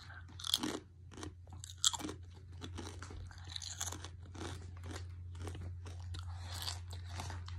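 Chewing a kettle-cooked potato chip: a string of irregular crisp crunches close to the mouth, the sharpest two in the first two seconds, then softer chewing.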